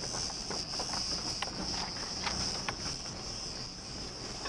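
Steady high-pitched shrilling of insects in the trees, heard from inside a car crawling along a stony dirt track, under a low rumble of the car with scattered clicks of stones under the tyres.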